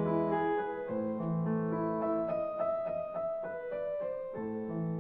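Piano music with a steady run of held notes.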